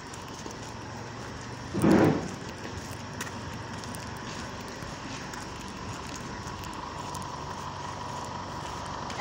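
Steady outdoor background noise with a faint high hum, broken about two seconds in by a short, loud rush of noise lasting about half a second.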